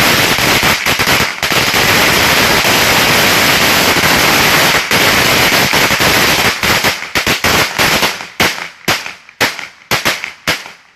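Two bricks of firecrackers going off in a rapid, continuous string of bangs that thins into scattered single pops over the last few seconds and stops near the end.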